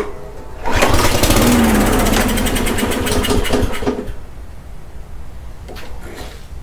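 Gravely walk-behind mower's small engine, fitted with a cheap replacement carburettor, pull-started: it fires and catches less than a second in, runs for about three seconds, then dies away. The owner suspects the carburettor has it running lean.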